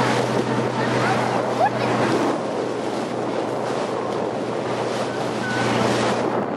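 Fishing boat under way: a steady low engine hum under rushing water and wind buffeting the microphone. The hum weakens about two seconds in and comes back near the end.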